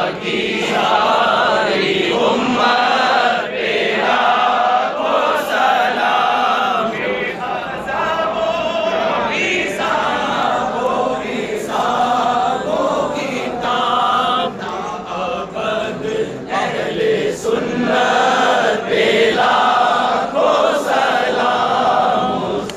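Large crowd of men chanting together in unison, singing a devotional refrain in short repeated phrases.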